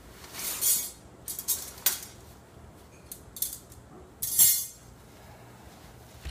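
Nylon storage bag rustling and the metal poles of a Byer TriLite camping cot clinking against each other as they are pulled out and the cot is unfolded. The sound comes in several short bursts, the loudest about four and a half seconds in.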